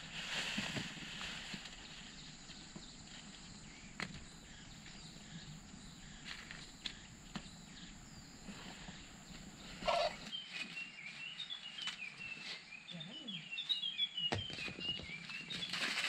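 Corn cobs and dry husks rustling and knocking as a basket of harvested corn is tipped into a wheelbarrow, with scattered knocks and one louder knock about ten seconds in. Birds then chirp in quick, repeated high notes until the end.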